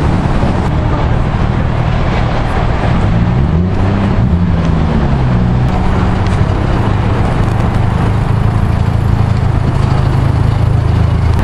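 Car engine running under way with steady road noise; its pitch climbs and falls back around four seconds in as the engine speed changes.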